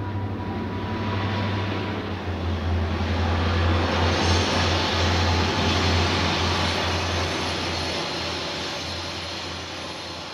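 Diesel locomotives hauling a freight train pass close by: a steady low engine drone with rushing wheel-and-rail noise, loudest about four to six seconds in, then slowly fading as the train moves on.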